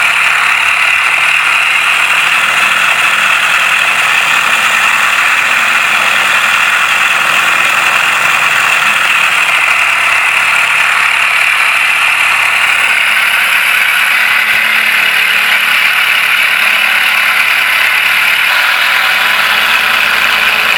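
Simulated Pratt & Whitney R-2800 Double Wasp radial engine sound from an electronic sound unit, played through two 10 W Dayton exciters built into an RC P-47D model. It runs loud and steady, without a break.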